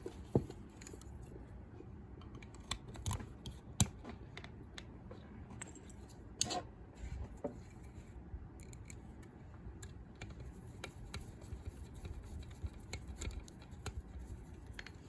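Small metal lock parts being handled and fitted by hand during reassembly of a three-lever warded lever lock: scattered light clicks and taps, a few sharper ones near the start and around the middle.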